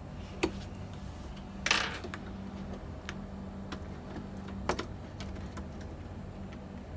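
Scattered small clicks and a brief scraping click from parts of a Lenovo V530 desktop being handled during a RAM upgrade, over a steady low hum. The loudest is the scraping click about two seconds in, with a double click near five seconds.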